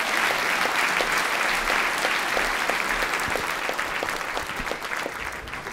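Audience applauding, dense clapping that thins out near the end.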